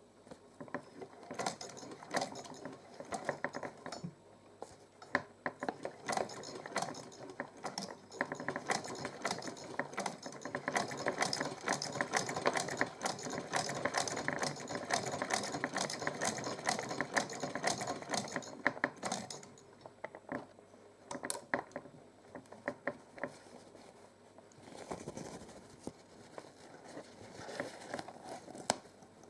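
Vintage Frister & Rossmann sewing machine running and stitching, a fast, even mechanical clicking. It starts about a second in, stops about twenty seconds in, then runs again more quietly near the end. The machine, taken apart and cleaned because it would not work, is sewing again.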